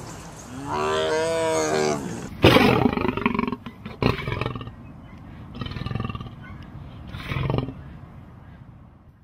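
A tiger's drawn-out, wavering call, then a male lion roaring: one loud full roar about two and a half seconds in, followed by two shorter grunting roars that fade out near the end.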